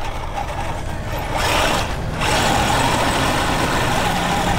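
Dubbed-in engine sound of a full-size mud truck running under load, with a steady low rumble. A loud rushing noise comes in about a second in, breaks off briefly, and then returns until near the end.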